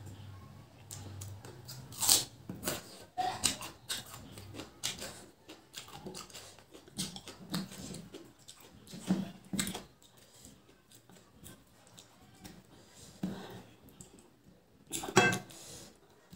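Eating rice and mutton curry by hand: fingers mixing and squishing rice with curry on a plate, and chewing. Short, sharp clicks and smacks come at irregular intervals, loudest about two seconds in and near the end.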